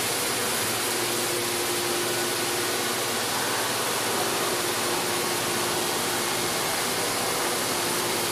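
Haas VF-3YT vertical machining center running, with coolant rushing steadily inside the enclosure as an even hiss over a faint steady hum.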